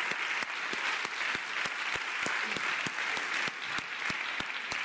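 Audience applauding: a dense, steady patter of many hands clapping, with sharper single claps standing out close to the microphone from the speaker on stage clapping along.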